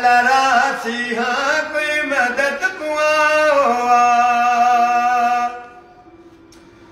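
An elderly man singing a noha, a Shia mourning lament, solo and unaccompanied, in long held notes that waver and bend; the singing stops about five and a half seconds in.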